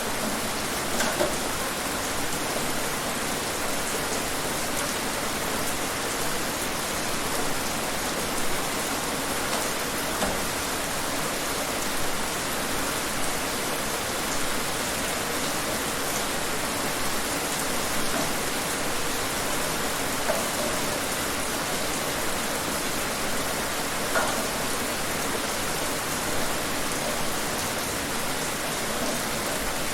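Steady rain falling outdoors, a constant even hiss with a few louder individual drops splashing out of it now and then.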